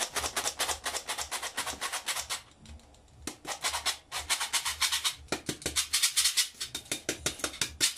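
Hand-held metal cup flour sifter being worked, flour sifted into a bowl: rapid, even rattling clicks about seven a second, breaking off briefly a little before three seconds in and then resuming.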